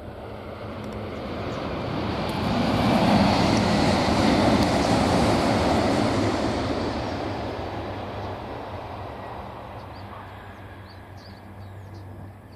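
JR West 500 series Shinkansen bullet train passing on a viaduct: a rushing noise that swells to a peak a few seconds in, then fades away as the train recedes.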